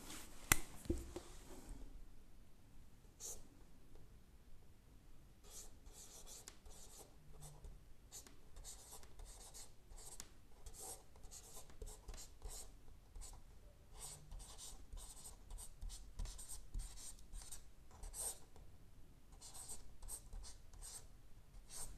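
Marker pen on a whiteboard: faint, quick scratching strokes as a line of formula is handwritten, with a single sharp click about half a second in.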